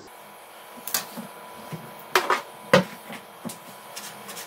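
Kitchen knife chopping a ball of squeezed, blanched spinach on a wooden cutting board: a few irregular knocks of the blade on the board, the loudest two a little past two seconds in and just under three seconds in.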